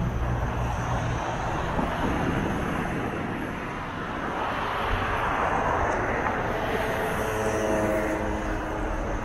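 City street noise with a passing vehicle. Its noise swells to a peak about five to six seconds in and then fades, and a low engine hum comes in near the end.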